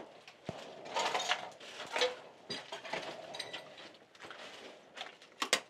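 Scattered clicks, scrapes and rustling from someone moving about and handling things, busiest about one and two seconds in, with a pair of sharp clicks near the end.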